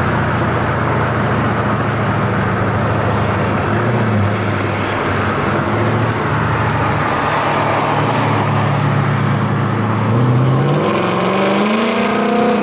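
2018 Mustang GT's 5.0 V8 running with no mufflers, exhaust open at the dumps, with a steady low drone. Near the end it accelerates and the pitch rises.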